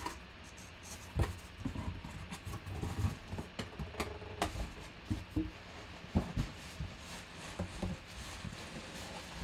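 A cardboard shipping box being opened by hand: its flaps scraping and folding back, with irregular knocks and rustling as the box is handled.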